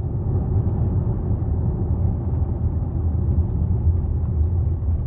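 A car driving along a road, heard from inside the cabin: a steady low rumble of engine and road noise.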